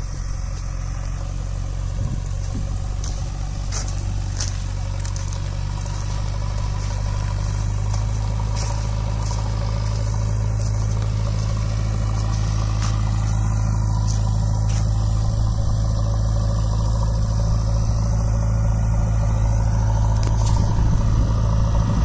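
JCB 3DX backhoe loader's diesel engine running steadily as the machine drives closer, growing slowly louder, with a few light clicks and clanks.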